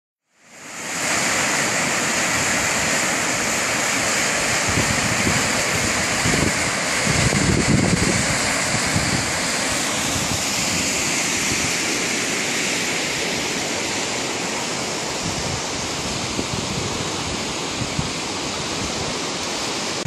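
Waterfall rushing: a steady, even wash of falling water that fades in over the first second, with low gusts of wind buffeting the microphone around the middle.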